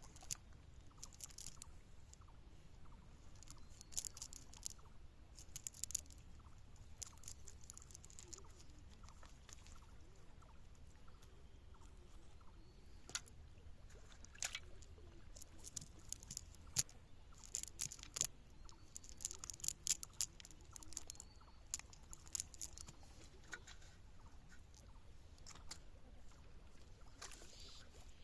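Irregular small splashes and sharp clicks of disturbed water, scattered with short pauses, over a faint steady low hum.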